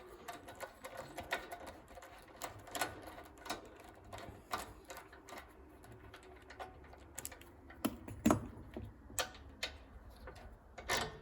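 Irregular light metallic clicks and taps of an Allen key and small fittings being worked on a floor sander's tension roller assembly, with a louder knock a little past eight seconds in.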